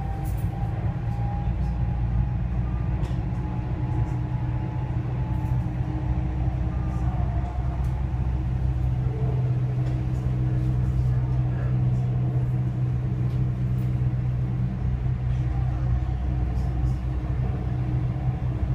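Dubai Metro driverless train running at speed on an elevated track, heard from inside the car: a steady low rumble with a thin, even whine over it.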